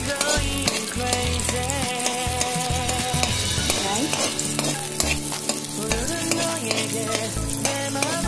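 Sliced red onion and ginger sizzling in hot oil in a steel pot while a metal spatula stirs and scrapes them against the pot's bottom.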